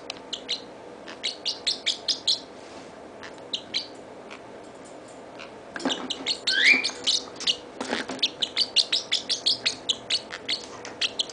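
Parrotlet chirping in quick runs of short, high chirps, with a quieter pause in the first half and a single rising chirp a little past the middle. A couple of knocks are mixed in with the chirps.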